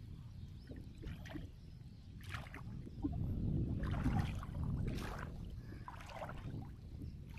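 Shallow marsh water sloshing and splashing around a man wading and pulling a wet gill net from it, with several small splashes and drips over a low steady rumble.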